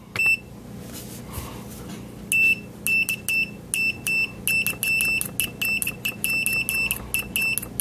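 A BSIDE digital multimeter's continuity beeper sounding as the test probes are touched together: one short blip at the start, then a string of irregular, broken high-pitched beeps from about two seconds in.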